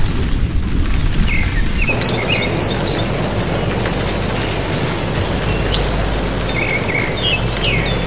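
Steady rushing-water noise with birds chirping over it: a quick run of four chirps about two seconds in, and more chirps near the end.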